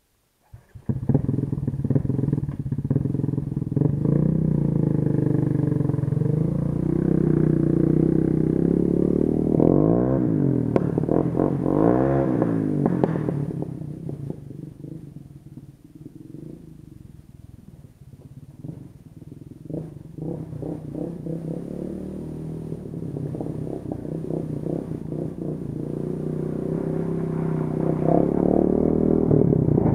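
ATV engine running, revved up and down twice in quick succession about ten to thirteen seconds in. It then falls quieter for several seconds and grows louder again near the end as the quad comes back toward the camera.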